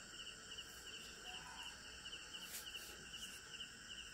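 Faint insect chirping: a short high chirp repeating steadily about three times a second, with one light tap about two and a half seconds in.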